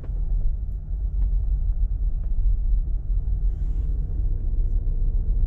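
Steady low rumble of a car heard from inside the cabin, the engine and tyres running on a snowy road, with a few faint clicks.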